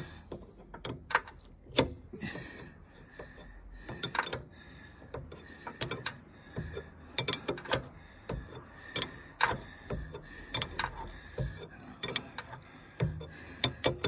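Steel wrench clicking and clinking against a hydraulic fitting as it is turned and reset, threading the fitting into the log splitter's control valve: irregular sharp metallic clicks with short pauses between.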